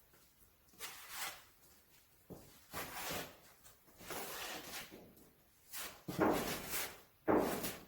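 Plastic spreader scraping two-part body filler, about seven strokes of half a second to a second each, the loudest near the end.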